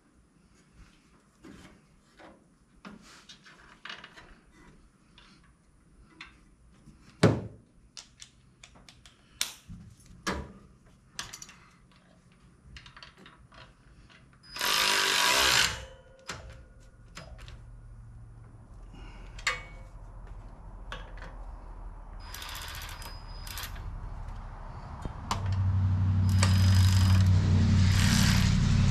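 Hand tools working on a car engine: scattered metallic clicks, knocks and rattles as parts are tightened and fitted. About halfway through comes a loud hiss-like burst lasting about a second, and a steady low hum starts a few seconds before the end.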